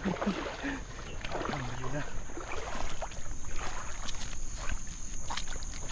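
Short, irregular splashes of river water around a cast net being worked in the water.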